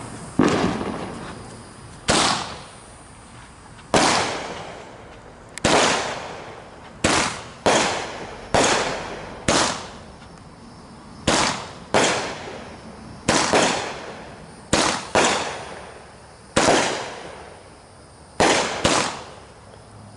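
Fireworks going off: a string of sharp bangs, about sixteen in twenty seconds at uneven gaps, each followed by an echo that fades over a second or so.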